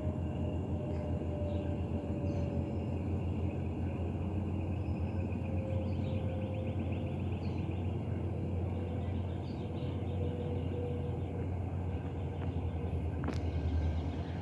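Jet airliner passing high overhead: a steady distant rumble of its engines, with a faint tone that slowly falls in pitch.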